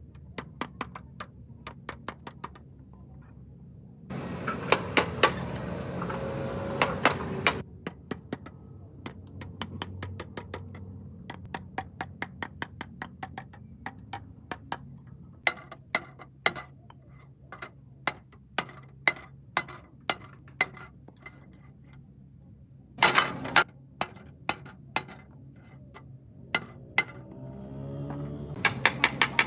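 A hammer striking metal repeatedly in uneven blows, about two or three a second, some with a short metallic ring. A stretch of harsh, hissing noise comes about four seconds in and lasts some three seconds, and a shorter burst of it comes late on.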